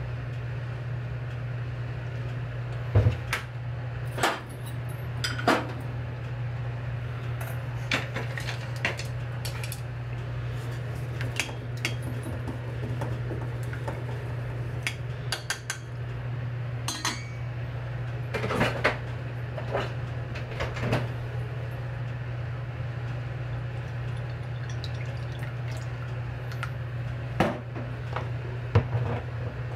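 Kitchen utensils clinking and knocking against dishes and cookware at an irregular pace, over a steady low hum.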